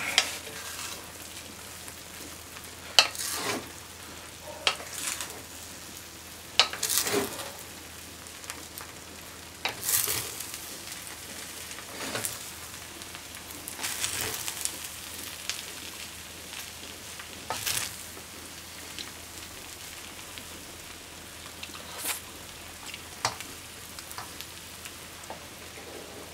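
Chicken rice sizzling gently in a stainless steel frying pan while a spatula stirs it, with irregular scrapes and knocks of the spatula against the pan.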